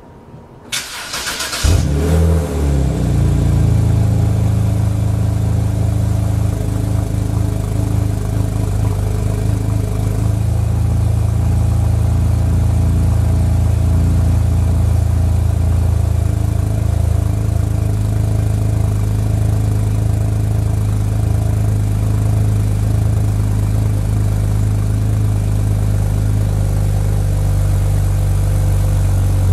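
Cold start of a 2006 BMW 330i's N52 straight-six through an Active Autoworke Signature muffler. The starter cranks for about a second, the engine catches and flares up in revs, then settles into a steady idle through the exhaust.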